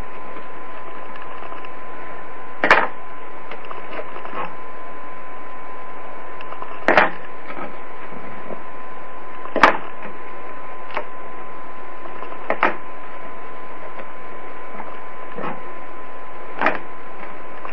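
Milled plywood parts being snapped by hand out of the holding tabs in the cut sheet: five short, sharp wooden cracks spaced a few seconds apart, over a steady hiss with a thin steady tone.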